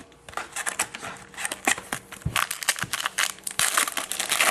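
Foil trading-card pack wrapper being torn open and crinkled, a dense run of irregular crackles that thickens about a second in and peaks near the end.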